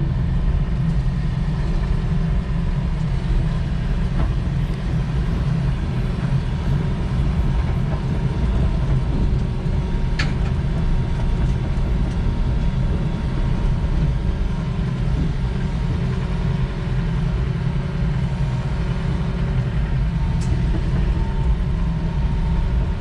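Diesel engine of a piece of heavy equipment running steadily under load as the machine is driven onto a trailer: a continuous low rumble with a faint steady whine above it. There are a couple of brief sharp clicks along the way.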